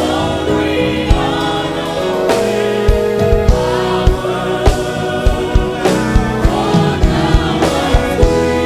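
Live gospel worship singing by a choir with band accompaniment and a steady drum beat.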